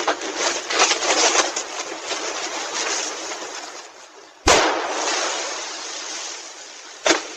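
A steady hiss, then a sudden loud bang about four and a half seconds in, followed by a hiss that slowly fades, and a second, shorter crack near the end.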